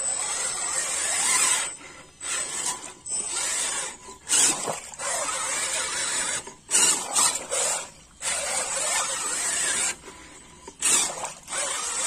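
Electric motor and gear drivetrain of a scale RC rock crawler whining in repeated bursts of throttle, with short pauses between them.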